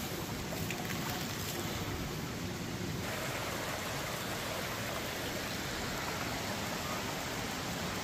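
Steady rush of flowing river water, turning a little hissier about three seconds in.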